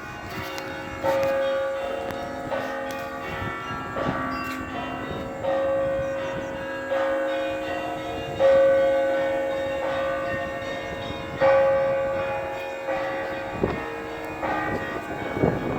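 Russian Orthodox church bells rung together in a rhythmic peal: bells of several pitches sound at once, with a heavier stroke about every second and a half, each left ringing on.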